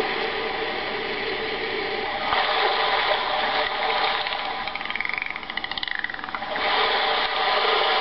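Dozy Dolphin plush sound machine playing its recorded ocean sounds through its small speaker: a steady rushing wash like ocean waves. A bit past the middle there is a high whistling call with rapid clicks.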